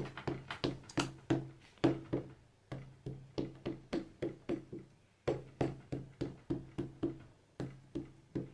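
A black StazOn ink pad dabbed repeatedly onto a rubber stamp on an acrylic block to ink it: quick taps, about four a second, with two short pauses.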